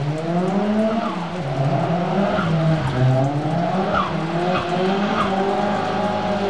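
Nissan Silvia drift car's engine revving up and down again and again while the car slides through a wet corner, with a few short high chirps from about two and a half seconds in.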